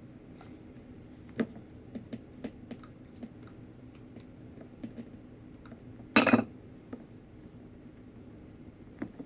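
Scattered light clicks, taps and clinks as a vase and a hot glue gun are handled while rope is glued around the vase, with one louder clatter about six seconds in.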